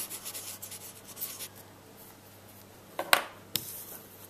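A pen scratching across a playing card in short strokes as a name is written on it, over the first second and a half. About three seconds in come a sharp knock and a smaller click.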